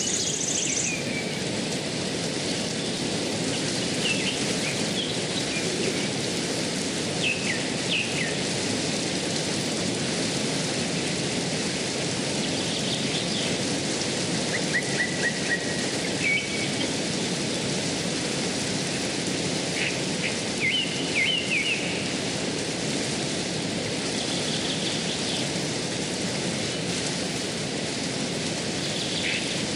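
Shallow river rushing steadily over rocks, with short bird chirps every few seconds.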